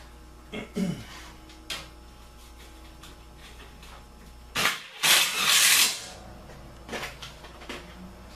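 Handling noises from sheet-metal work on a furnace: a few light knocks and clicks, and about five seconds in a loud rasping scrape lasting about a second.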